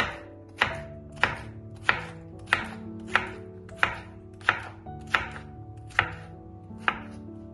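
Kitchen knife chopping cucumber on a wooden cutting board, sharp evenly paced strokes about every two-thirds of a second.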